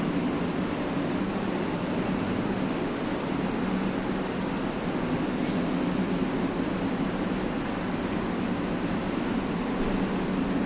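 Sogo SG-5603 56-inch industrial ceiling fan running, a steady rush of moving air with a low hum.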